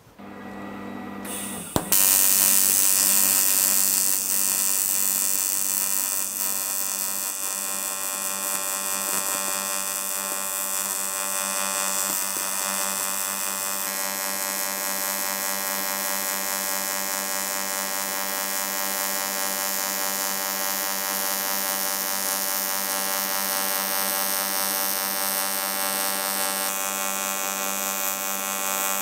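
AC TIG welding arc from an R-Tech TIG 261 AC/DC welder at about 160 amps, laying filler on 5 mm aluminium: a steady buzz that strikes up about two seconds in and holds with little change.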